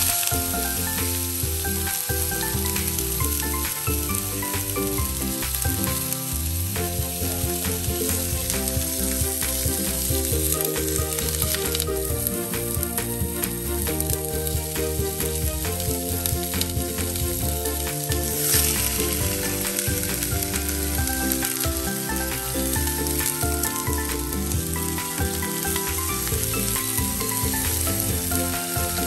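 A pork butt roast searing in hot oil in a nonstick frying pan: a steady frying sizzle, flaring louder briefly twice.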